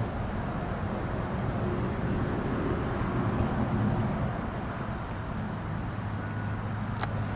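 Steady outdoor background rumble of road traffic, with a low hum joining about halfway through and a single sharp click near the end.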